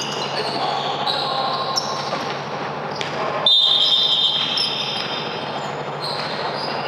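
Basketball game in play: ball bouncing and repeated short, high-pitched sneaker squeaks on the court over a steady hum and faint player voices. About halfway through comes one louder, longer high-pitched squeal.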